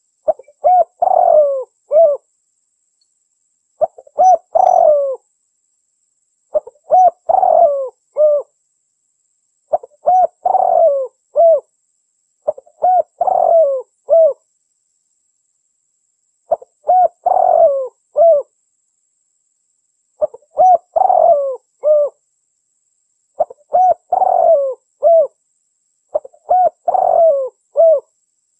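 Dove cooing call played as a hunting lure, repeated nine times about every three seconds. Each phrase is a short opening note, a quick run of coos and a final coo, with silence between.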